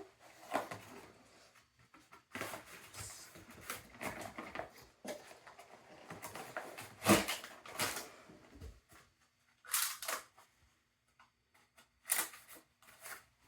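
Packaging being handled during unboxing: irregular rustling and crinkling with short clatters, loudest about seven seconds in, then two shorter bursts separated by quiet gaps.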